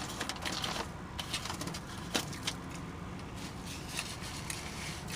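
Close-up chewing and lip-smacking while eating fries: a string of short, sharp wet clicks over a low steady rumble.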